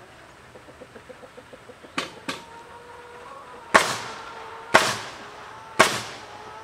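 Nails being driven into the wooden framing of a shed as bracing is fastened: two lighter strikes about two seconds in, then three loud, sharp strikes about a second apart, each ringing briefly.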